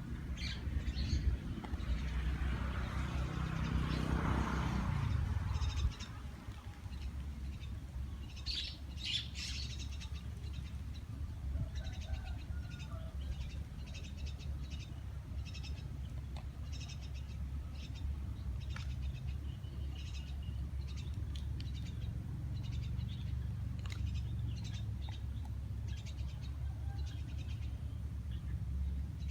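Small birds chirping repeatedly in short high notes over a steady low rumble. A louder rushing noise swells during the first six seconds and cuts off suddenly.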